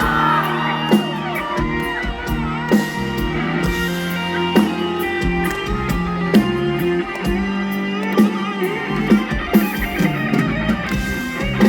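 Live band music: an instrumental passage led by guitar over a steady bass line and beat.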